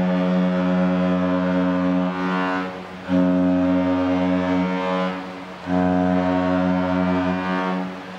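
Great Lakes freighter's horn blowing long, deep blasts. The first is already sounding and stops a couple of seconds in, then two more follow with short gaps between them.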